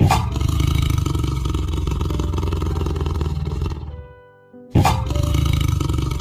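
Tiger roaring twice. The first long roar starts sharply and fades out after about four seconds, and the second begins abruptly near the end, over background music.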